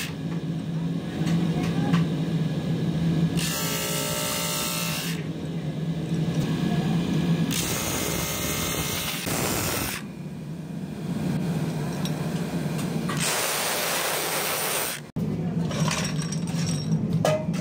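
Electric motor of a brake-shoe lining grinder running with a steady hum, and the friction lining of a motorcycle brake shoe ground against the abrasive wheel in three spells of hissing grinding, each about two seconds long. Near the end, metal brake shoes clatter onto a concrete floor.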